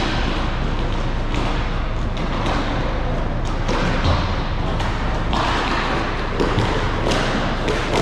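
Roller hockey play on a sport-court rink: a steady rush of noise with repeated clacks and knocks of sticks and puck. A heavier thud comes about four seconds in.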